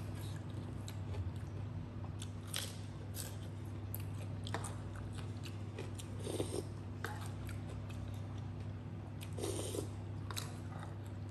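Close-up eating sounds: chewing, with wet mouth clicks and smacks from eating saucy crab, and two louder slurps from a spoon about six and nine and a half seconds in. A steady low hum runs underneath.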